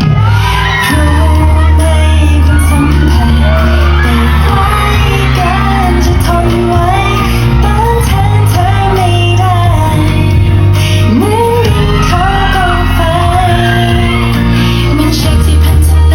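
Amplified pop song played through a hall PA, with a sung vocal line over a heavy, steady bass backing track, echoing in a large room. Occasional shouts or whoops are heard.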